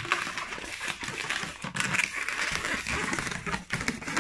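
Inflated latex modelling balloon rubbing and crinkling against itself and the fingers as it is twisted into a small ball bubble, a continuous rubbery crackle with many little clicks.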